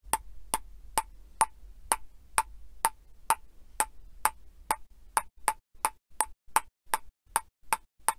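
Evenly spaced sound-effect ticks, about two a second, that keep time with the caption's letters appearing one by one.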